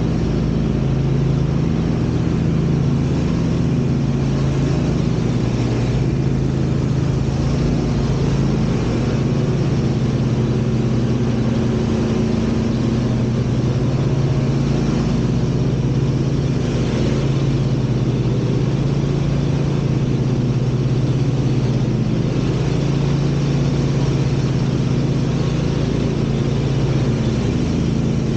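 Lawn mower engine running steadily at constant speed, a low even hum with no let-up.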